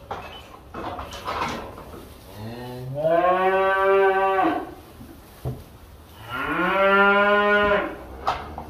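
Black Angus cattle mooing: two long moos, the first about two seconds in and the second about six seconds in. Each rises in pitch at the start and then holds for about two seconds.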